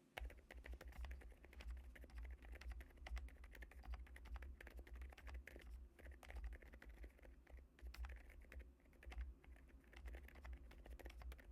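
Typing on a mechanical keyboard fitted with Akko Penguin Silence tactile silent switches (65 g actuation): a quiet, continuous run of soft, damped keystrokes.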